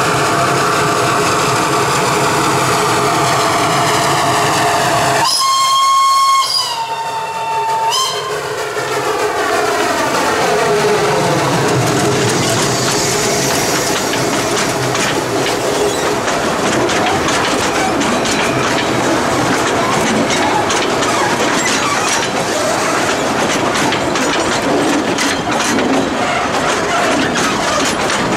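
Narrow-gauge forest railway train running, with a steam locomotive's whistle blown once about five seconds in for about two and a half seconds. The whistle's pitch drops a step just before it stops. After it, the wheels clatter steadily over the rails.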